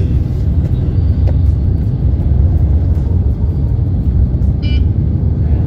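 Steady low rumble of engine and road noise inside a moving car's cabin. A brief high beep cuts in once, a little before the end.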